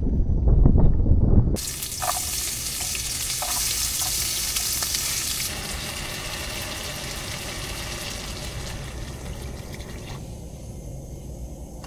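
Wind buffeting the microphone with a low rumble, cut off suddenly after about a second and a half. Then food sizzling as it cooks, a steady hiss that slowly fades, with a few light clinks early on as it is stirred.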